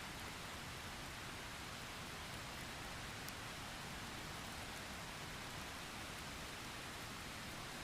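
Steady rain falling, an even hiss without a break, with one faint tick of a drop about three seconds in.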